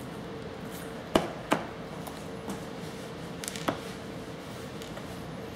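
A baby's hands slapping and tapping a plastic high-chair tray: two sharp taps about a second in, then a few lighter taps a couple of seconds later.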